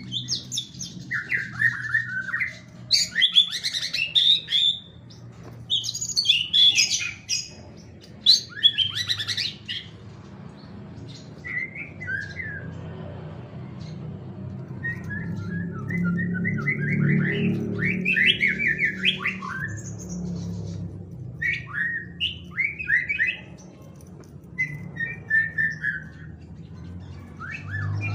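White-rumped shama (murai batu) singing a long, varied song in separate loud phrases with short pauses, including a fast run of quick repeated notes about halfway through, the bird delivering its full learned repertoire. A faint steady low hum sits underneath.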